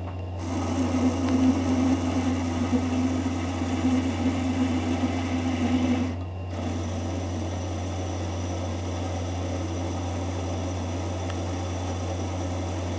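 Lathe running with a steady hum while a hand-held chisel scrapes a rough cut into a spinning hardened-steel shaft, taking only small chips. The cutting stops about six seconds in and the lathe runs on alone.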